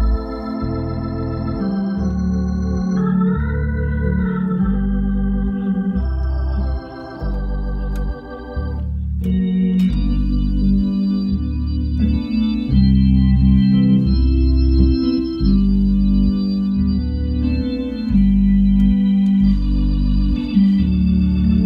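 Hammond console organ playing a hymn: sustained chords over a bass line that steps to a new note about once a second.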